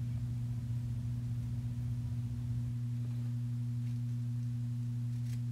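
A steady low hum, a deep tone with a fainter higher one above it, over faint background hiss.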